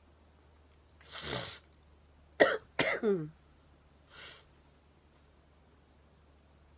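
A woman blowing her stuffy, allergy-congested nose into a tissue: a breathy blow about a second in, then a sharp loud blast and a honking blow that falls in pitch around two and a half to three seconds, and a faint short blow near four seconds.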